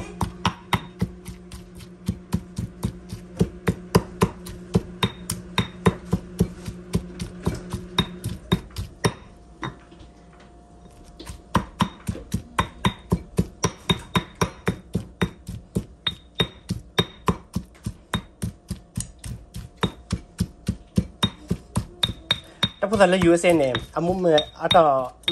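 Stone pestle pounding a green paste in a stone mortar: a steady run of knocks about two to three a second, stopping for about two seconds near the middle and then going on.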